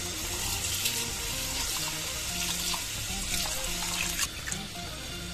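Tap water running into a bowl of rice in a sink, then hands swishing and rubbing the rice in the water to wash it. Background music plays underneath.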